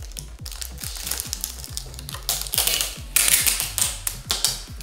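Protective plastic film being peeled off a new TV, crackling and tearing in a few long pulls about halfway through and again near the end. Background music with a steady, fast beat plays throughout.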